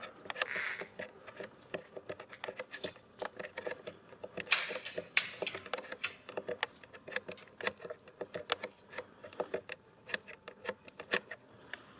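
Footsteps crunching and scuffing over a gritty, debris-strewn floor: irregular sharp clicks and short scrapes, several a second, with a longer scuff about half a second in and again around four and a half seconds.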